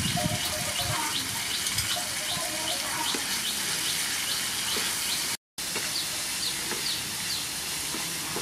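Sea snail and vegetable stir-fry sizzling in a frying pan as sauce is poured in and stirred with a wooden spatula, with a few knocks at the start. A bird chirps over it in a quick, regular series, about two or three calls a second. The sound cuts out for a moment past the middle.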